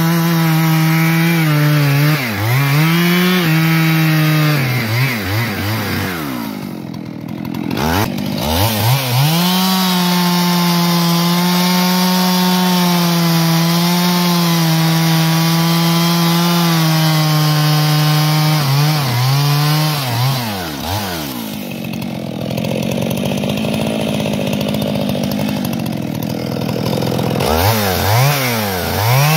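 Stihl MS 441 C-M Magnum two-stroke chainsaw bucking a log into firewood rounds. The engine holds high revs in the cut, drops off and revs back up several times between cuts.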